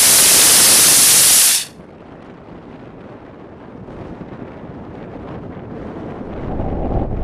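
Homemade sugar-propellant rocket motor in a PVC casing with an all-steel nozzle firing on a static test stand: a loud, even hiss of exhaust that cuts off suddenly after about a second and a half. The burn is short because the heat at the steel nozzle was too much for the PVC casing. Wind on the microphone follows.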